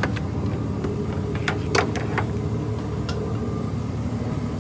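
Ford 6.4 L Power Stroke twin-turbo V8 diesel idling steadily with its newly installed turbochargers, with a few sharp clicks about a second and a half in.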